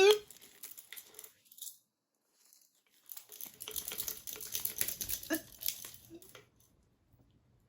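Scattered light clicks and rattling of a plastic baby sound-maker toy being handled and shaken, busiest from about three to six seconds in, after the toy's electronic tone cuts off at the very start.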